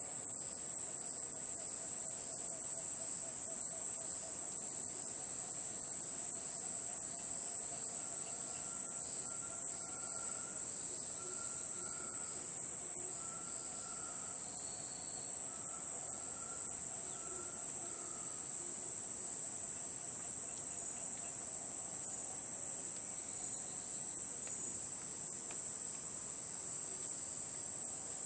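Rainforest ambience: a dense, steady, high-pitched chorus of insects that does not let up. In the middle, faint short repeated calls sound beneath it.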